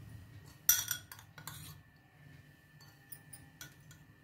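Steel spoon knocking against a glass bowl and jar while ground spice mix is spooned in. One sharp knock comes just under a second in, followed by several lighter taps, over a faint steady hum.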